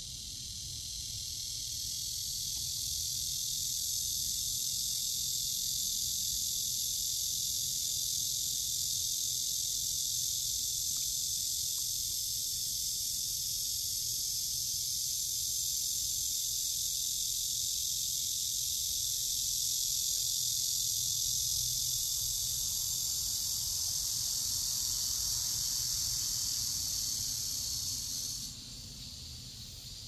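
Insect chorus buzzing steadily at a high pitch, swelling over the first couple of seconds and cutting off abruptly near the end, leaving a fainter hiss.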